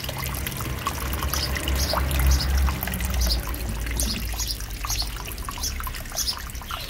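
Water from a small pond fountain pump spraying up and splashing back into the water: a steady trickling and splashing.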